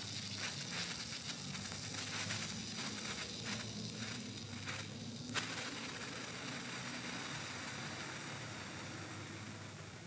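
A burning Senko Hanabi sparkler of baking soda, sulfur and charcoal, its molten drop sizzling with soft, dense crackles as it throws sparks. One sharper snap comes about five seconds in, and the sound fades near the end.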